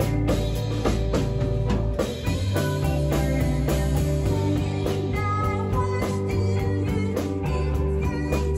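A rock band playing live: electric guitars over a bass line and drum kit, with the bass notes changing a couple of times.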